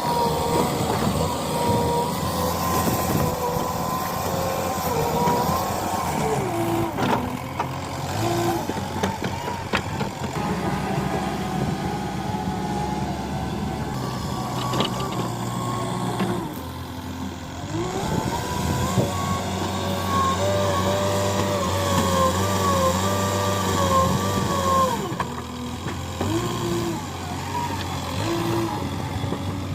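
JCB 3DX Eco backhoe loader's diesel engine running under working load, with a whining tone that rises and falls as the machine works. The engine eases off briefly in the middle before picking up again, and there are a few short knocks.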